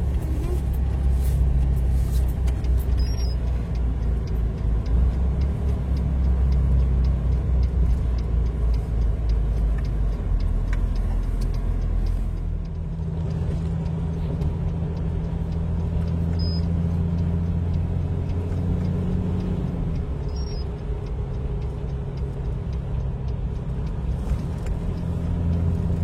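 Truck engine running steadily, heard from inside the cab while driving; the engine note changes about halfway through.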